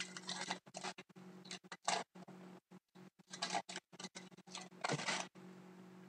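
Trading cards being slid and flipped through the hands: about four short, papery brushing sounds over a steady low electrical hum.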